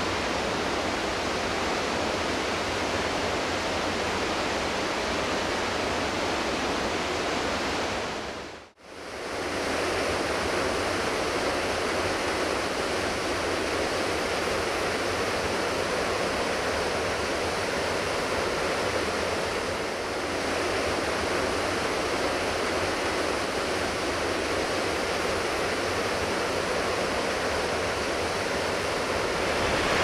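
Steady rush of a large waterfall. It dips briefly to near silence about nine seconds in, then comes back at the same level.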